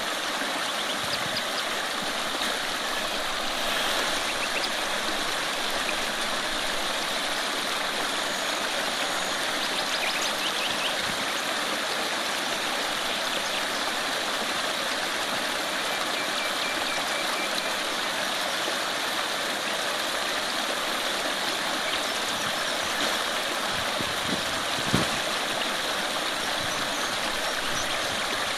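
Shallow rocky creek flowing right past the microphone at water level: a steady rushing, babbling stream. One brief knock sounds near the end.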